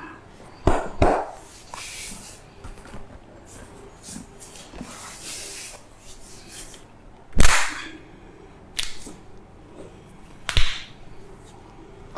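Sharp smacks and cracks from a hands-on head and neck massage. There are five: two close together about a second in, the loudest a little past the middle, and two more later, with softer rustling between.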